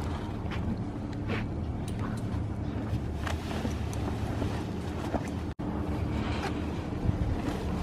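A steady low mechanical hum runs throughout, with faint rustles and light clinks from horse rugs being handled, a few scattered times.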